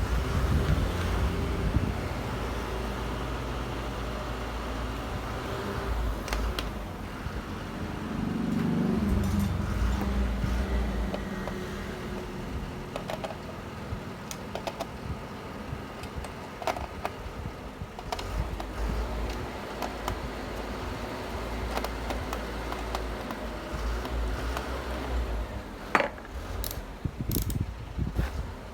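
Scattered clicks and light metallic rattles of small parts or tools being handled, with more of them near the end, over a low rumble of wind on the microphone.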